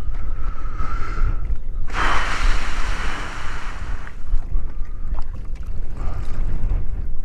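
Wind rumbling on the microphone, with a sudden loud rush of hiss about two seconds in that fades away over about two seconds.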